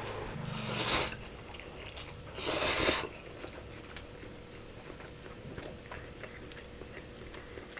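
A person slurping instant ramen noodles off chopsticks, two long noisy slurps in the first three seconds, then chewing with small wet clicks.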